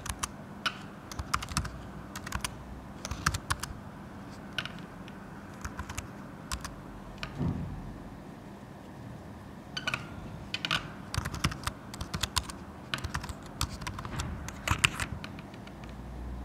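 Typing on a computer keyboard: keystrokes in irregular clusters, with a lull of about three seconds near the middle.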